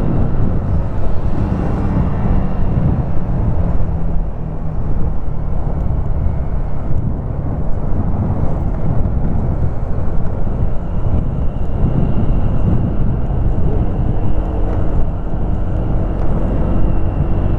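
Motorcycle running on the road while being ridden: a steady engine drone over a dense low rumble.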